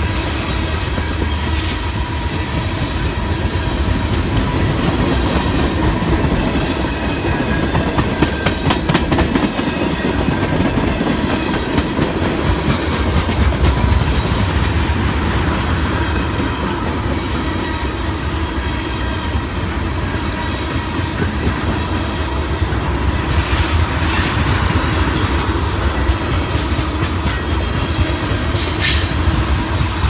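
Norfolk Southern freight train of tank cars rolling by at close range: a steady low rumble with wheels clicking over rail joints, strongest around a third of the way in. Near the end come a couple of brief high metallic screeches.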